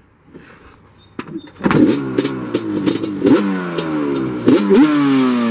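A Yamaha Banshee 350's two-stroke twin engine with Toomey T5 pipes is kick-started and catches on the first kick about a second and a half in. It is then blipped several times, the revs rising sharply and falling back between blips.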